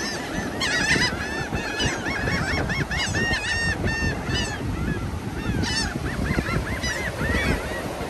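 A crowd of seagulls calling over one another, many short repeated cries overlapping with hardly a break, over a steady low noise.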